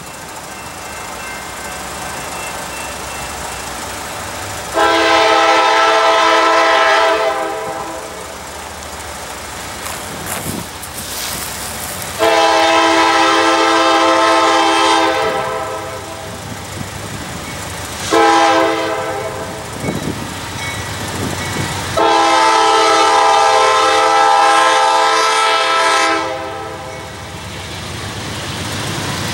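Norfolk Southern road diesel locomotive sounding its air horn in the long-long-short-long pattern, the signal for a grade crossing, with the train's rumble between blasts. The short third blast is about a second long; the others run about three to four seconds each.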